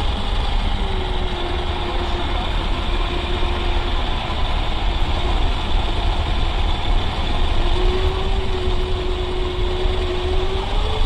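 A radio-controlled model truck drives along an asphalt track, heard from a camera riding low on the road. There is a steady low rumble and a thin steady whine that comes in twice, about a second in and again from about eight seconds until near the end.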